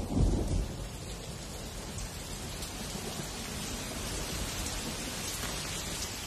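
Monsoon rain falling steadily, with a low rumble of thunder dying away in the first second.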